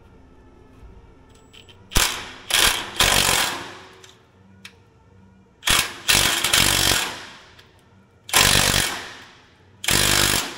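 Impact wrench hammering in about four spells of short, loud bursts on a seized, rusted track roller nut on a crawler dozer, run briefly in reverse and back the other way to try to break it loose.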